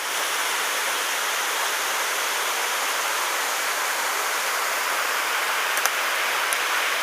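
Waterfall pouring into a pool, a steady even rush of water. Two faint clicks sound briefly near the end.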